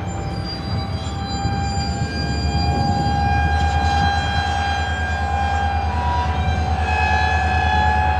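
Freight train starting from a stop: the diesel locomotives' deep, pulsing rumble grows louder about two and a half seconds in as they load up, while the wheels of the slowly rolling cars squeal in long, steady high tones.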